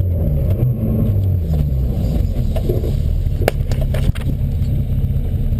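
Peugeot 106 1.4 XSi's four-cylinder petrol engine heard from inside the cabin, driven hard, its pitch rising and dropping with the gear changes. A couple of sharp knocks a little past halfway.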